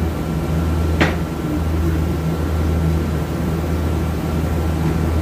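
A steady low hum, with one sharp click of metal transmission parts knocking together about a second in.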